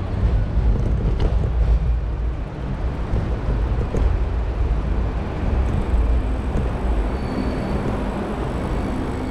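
Steady low rumble of city street noise, with a faint high squeal near the end.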